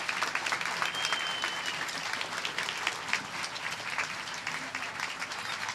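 Audience applauding after a speech, dense steady clapping, with a single high held whistle about a second in.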